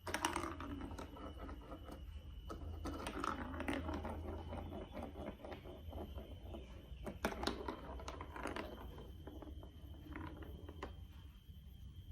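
Plastic clicking and clattering of a building-block marble run toy: scattered light clicks with a few sharper knocks, the loudest near the start and twice about a second apart later on.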